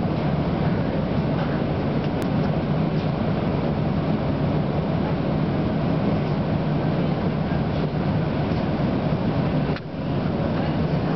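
Steady hum and hiss inside a streetcar cabin while the car stands still. It drops out briefly near the end.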